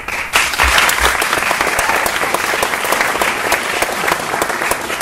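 Audience applauding: many hands clapping together in a dense clatter that starts suddenly and keeps an even level.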